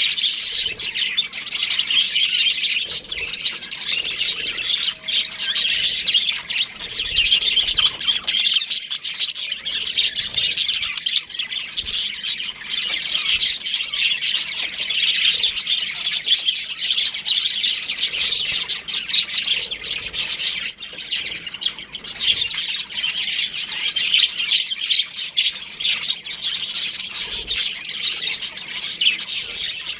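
A flock of budgerigars chattering, many chirps and squawks overlapping in a dense, unbroken stream.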